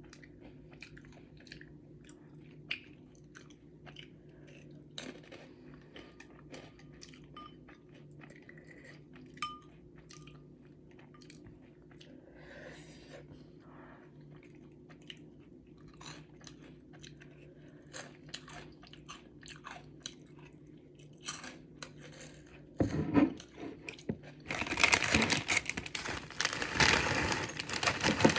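Close mouth sounds of a person chewing Samyang carbonara noodles: soft, irregular clicks and smacks. About five seconds before the end, a louder crinkling, rustling noise takes over.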